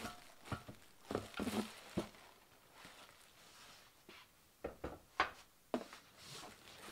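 Faint unpacking noise: plastic wrap rustling around a steel work table as it is lifted out and set aside, with scattered light knocks and clicks, and a cluster of sharper clicks about five seconds in.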